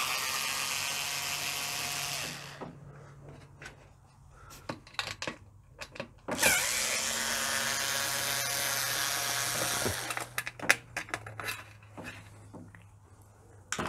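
Power drill-driver with a Torx T15 bit running steadily in two runs, backing screws out of the dishwasher's lower front panel: the first stops about two and a half seconds in, the second starts about six and a half seconds in and runs about three and a half seconds. Light clicks and knocks of handling fall in the gaps and near the end.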